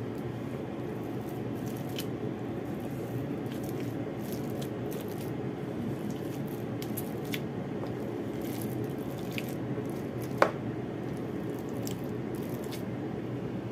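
Spatula stirring and squishing a soft mash of pumpkin with minced prawn and pork in a bowl, with faint scattered ticks against the bowl and one sharper click about ten and a half seconds in.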